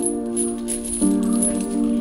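Background music: sustained chords that change about a second in, with a light rattling percussion over them.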